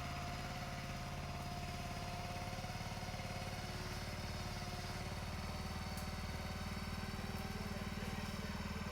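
Engine of the greenhouse delivery machinery running steadily at an even speed, a low hum that stays constant.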